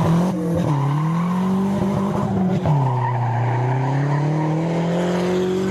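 Turbocharged Nissan 240 drift car's engine revving with its tyres squealing in a drift. The engine pitch climbs, falls away sharply about halfway through, then builds again.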